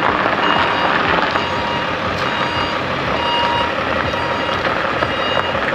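A vehicle's reversing alarm beeping in short tones, over the steady noise of the vehicle.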